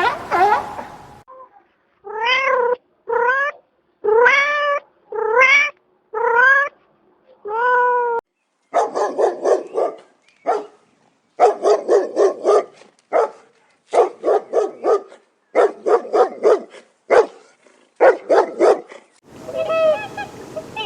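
Domestic cat meowing: six drawn-out meows, each rising and then falling in pitch, about a second apart. These are followed by a longer stretch of short, quick calls in rapid runs.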